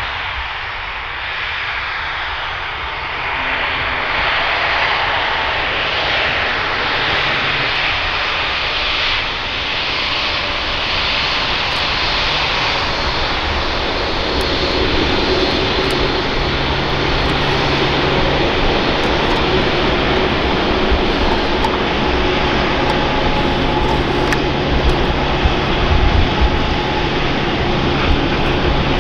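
Boeing 787-8 airliner's jet engines during the landing roll on a wet runway: a steady rushing noise. From about halfway, steady engine tones come up through the rush and it grows slightly louder as the plane rolls along.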